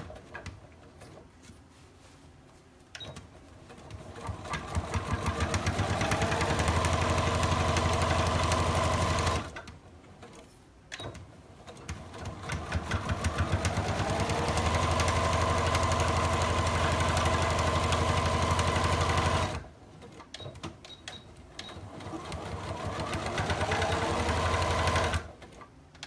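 Electric sewing machine stitching a seam in three runs, each speeding up from a slow start to a steady hum. Short pauses with small clicks fall between the runs.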